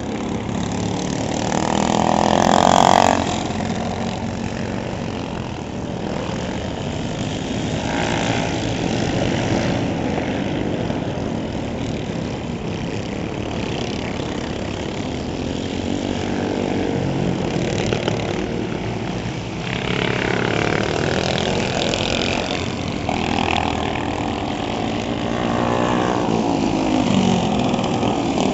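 Racing karts with tuned Honda GX200 single-cylinder four-stroke engines running on track, the engine notes rising and falling as they accelerate out of corners and pass by. The loudest pass comes about two to three seconds in.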